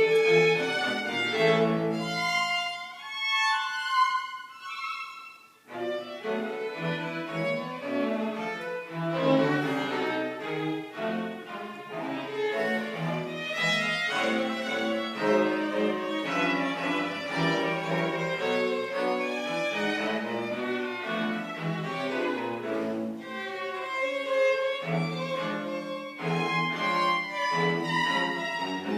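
A string quartet of two violins, viola and cello playing live. A few seconds in, the low parts drop out and only the upper strings play; at about six seconds the cello and full ensemble come back in.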